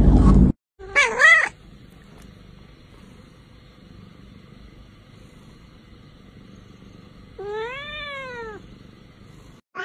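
A cat meowing twice: a short wavering meow about a second in, then a longer meow near the end that rises and falls in pitch. Just before the first meow, a loud low rumble cuts off about half a second in.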